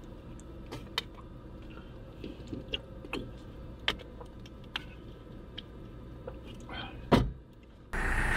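Small clicks and light knocks of things being handled in a cramped, quiet space, with a louder thump about seven seconds in. Near the end the sound switches abruptly to a steady outdoor hiss.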